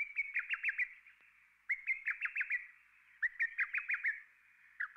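A songbird singing: short phrases, each a brief note followed by a quick run of four or five falling whistled notes, repeated about every second and a half. A fourth phrase begins near the end.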